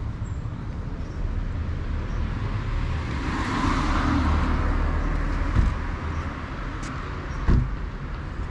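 Street traffic: a car passing by, its tyre and engine noise swelling and fading midway, over a steady low rumble. There are two short thumps toward the end.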